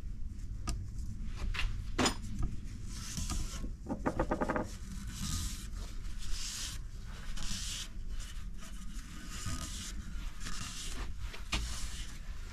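Shop rag wiping over the bare metal lower bedplate and main-bearing shells of a BMW N55 engine, a series of rubbing swishes. A sharp knock comes about two seconds in and a short ringing knock about four seconds in.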